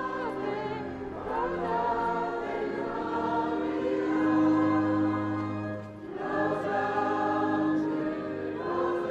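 A large crowd singing a hymn together, many voices holding long notes in slow phrases, with a brief break between phrases about six seconds in.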